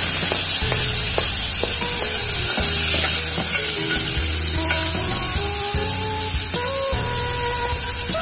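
Freshly added chopped onions sizzling in hot oil in an aluminium pot, a steady loud hiss, with scattered clicks and scrapes of a utensil stirring them against the pot.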